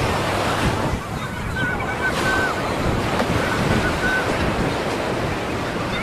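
Ocean surf washing onto a beach, with wind on the microphone. Faint short high-pitched tones come through about one and a half seconds in and again around three seconds.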